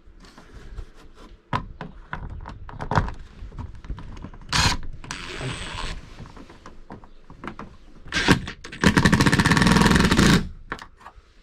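A power driver drives a screw that fastens an RV rooftop air conditioner's ceiling assembly up to the roof: a short burst about four seconds in, then a longer run of about a second and a half near the end. Clicks and knocks from handling the screw and the assembly come in between.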